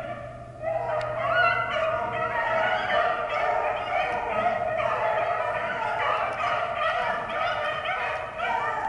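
A pack of beagles baying together as they run a rabbit's track, many overlapping voices in a steady chorus, with a short lull just under a second in.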